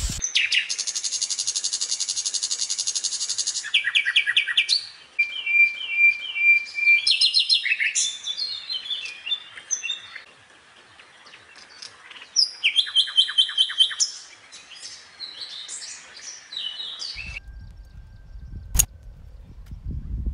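Songbirds chirping and singing: a fast, buzzy trill for the first few seconds, then varied chirps and short whistled phrases overlapping. The birdsong cuts off abruptly about three-quarters of the way through, leaving a low rumble with a single sharp click.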